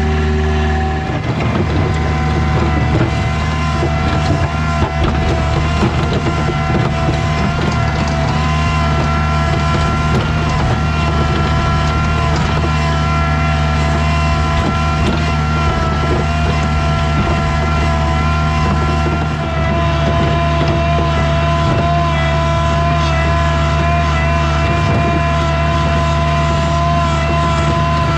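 Skid steer's engine running steadily under work, with brief dips about a second in and again near twenty seconds in.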